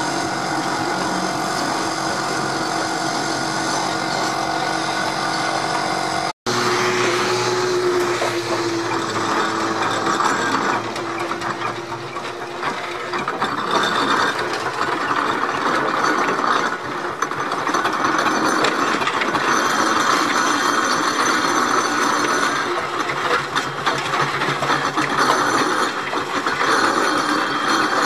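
Steam roller on the move with its trailer, the iron-tyred wheels and gearing clanking and rattling steadily, broken by a sudden cut about six seconds in.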